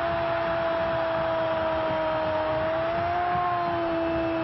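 A Brazilian TV football commentator's drawn-out goal cry: one long shouted 'goool' vowel held at a steady pitch, wavering slightly about three seconds in.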